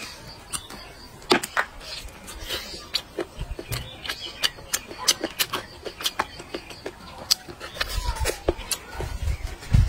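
Close-miked chewing of braised pork rib: a steady run of irregular wet clicks and smacks from the mouth, with a low thump just before the end.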